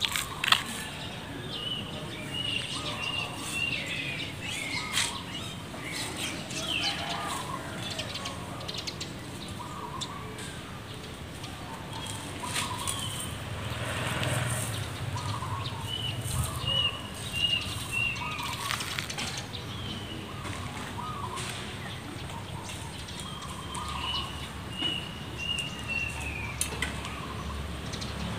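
Birds singing: one repeats a quick run of five or six short, even high notes three times, with lower chirps in between. Scattered short ticks run alongside, fitting footsteps on pavement.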